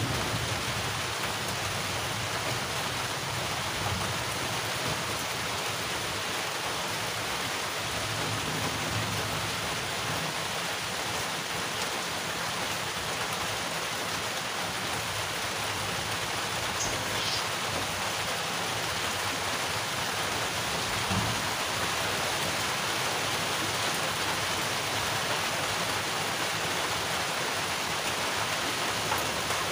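Steady heavy rain falling, an even, unbroken hiss.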